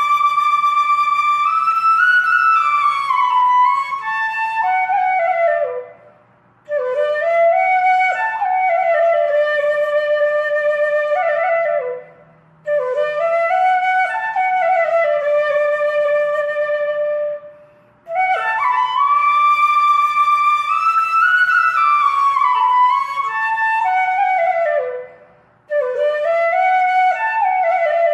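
Solo flute playing a slow, single-line melody in long phrases, each held for about five or six seconds and separated by short pauses for breath.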